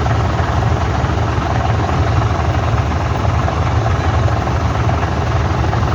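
Diesel engine of heavy earthmoving machinery, an excavator or bulldozer, running steadily with a loud, fluttering low rumble.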